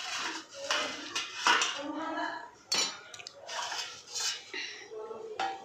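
Stainless steel pot lid and steamer basket clattering and clinking as the lid is taken off the momo steamer, with a few sharp metal knocks.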